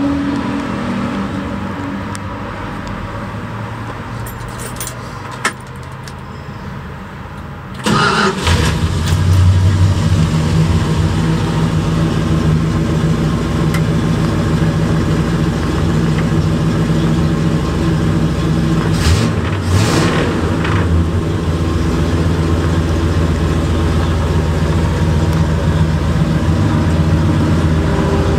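1970 Dodge D100's 318 V8 starting, heard from inside the cab. It catches with a sudden loud burst about eight seconds in and then settles into a steady idle.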